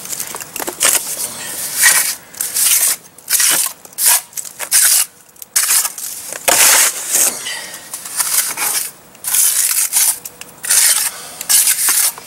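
Mason's trowel scraping and packing wet cement into a hole in a foundation wall: a run of irregular rasping strokes with short pauses between them.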